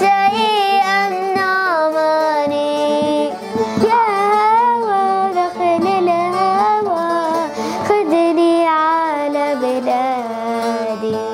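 A young girl singing a melody that slides and wavers between notes, accompanied by a buzuq, a long-necked lute, plucked under her voice. The music grows quieter near the end.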